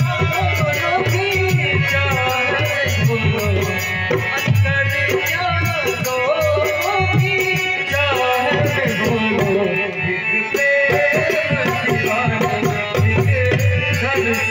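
Live Indian song music: a harmonium playing the melody over a steady drum beat, with an evenly repeating rattling percussion on top.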